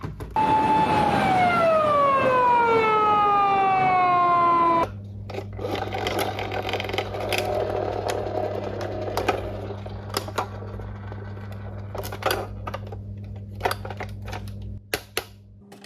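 Toy emergency vehicle's electronic siren sounding one long falling wail that cuts off suddenly about five seconds in, followed by quieter clicks and handling noise.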